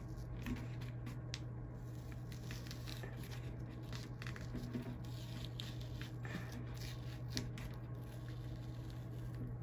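Painter's tape being peeled slowly off the edge of an acrylic painting, a run of small crackling tears and snaps, over a steady low hum.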